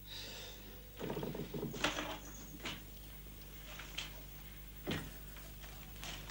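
A cabinet door being opened: a short clatter of clicks and knocks about a second in, then a few single knocks.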